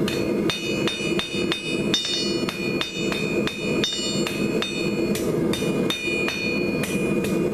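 Hand hammer striking a quarter-inch square steel bar on an anvil, in an even rhythm of about three blows a second with a short pause midway. Each blow sets the anvil ringing at a clear high pitch, over a steady low hum.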